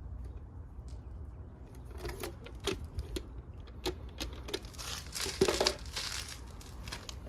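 Light clicks and taps with a brief rustle of handling about two-thirds of the way in, as anchor holes for a dryer vent damper are marked on a brick wall.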